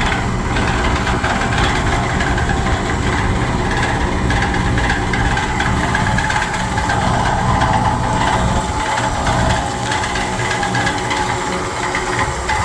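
A vehicle engine running steadily, with a slight drop in level near the end.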